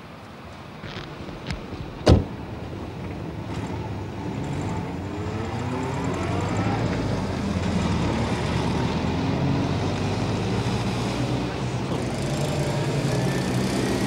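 A car door slams once about two seconds in, after a couple of lighter clicks. Then a motor vehicle's engine pulls away, its pitch rising as it speeds up, and settles into a steady drone.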